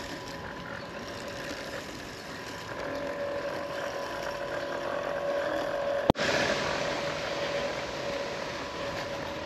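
EcoFlow Blade robotic lawn mower running, its electric motors giving a steady whine that grows a little louder about three seconds in. A single sharp click about six seconds in.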